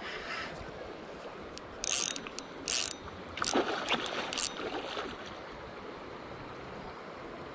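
Okuma Helios HSX-40 spinning reel's drag buzzing as line is pulled out, in two short runs about two seconds in, then a hooked salmon thrashing and splashing at the surface for about a second.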